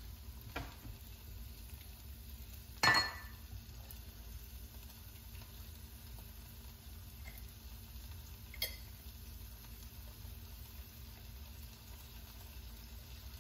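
Green beans sizzling gently in a sauté pan, a steady low frying hiss over a faint steady hum. A single sharp clink rings about three seconds in, and a smaller click comes later.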